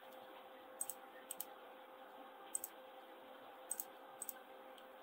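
Faint clicks of a computer mouse and keyboard, about ten short clicks that mostly come in close pairs, over a low steady background hiss.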